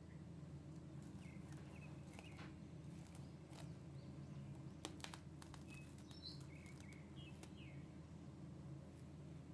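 Faint steady low hum, with small bird chirps scattered through and a few light clicks near the middle.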